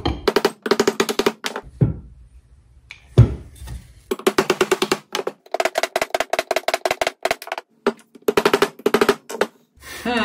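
Soft-faced mallet driving a spacer and bearing down into a Bridgeport mill's step-pulley bearing housing, first through a wooden block and then on a steel drift rod. Quick rolls of light taps with a metallic ring, broken by a couple of single heavier blows. A drawn-out pitched sound begins just before the end.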